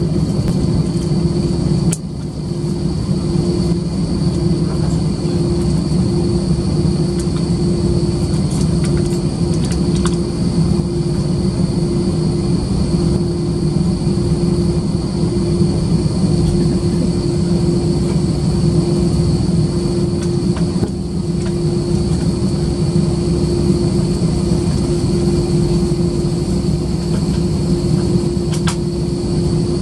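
Cabin noise of an Airbus A320-214 taxiing, its CFM56-5B jet engines running: a steady low rumble with a constant hum and a thin high whine on top.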